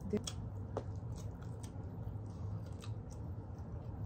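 Chewing and biting into chicken wings close to the microphone, with scattered small crunches and mouth clicks over a low steady hum.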